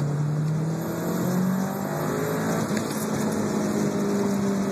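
Turbocharged Honda VTEC engine revving under acceleration in second gear, heard from inside the car. Its pitch climbs over the first second and a half, then holds.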